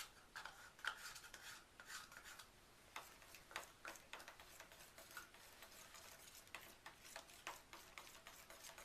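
Faint scraping and light irregular tapping of a utensil stirring soap batter in a container, mixing in the red colourant.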